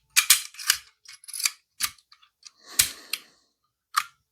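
Arrow T50 staple gun being worked by hand: a run of sharp metal clicks and clacks, with a heavier snap about three seconds in as it is test-fired.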